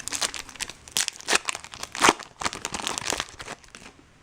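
Foil wrapper of a trading-card pack crinkling and being torn open, a dense run of sharp crackles that dies away near the end.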